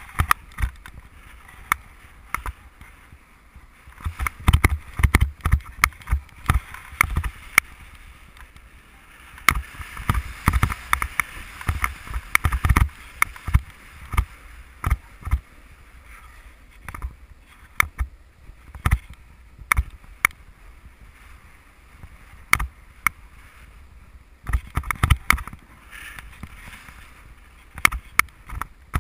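Snowboard riding downhill, heard through an action camera: the board's edge scraping and hissing over snow, with wind rumbling on the microphone and frequent irregular knocks and rattles. The scraping swells in the middle and again near the end.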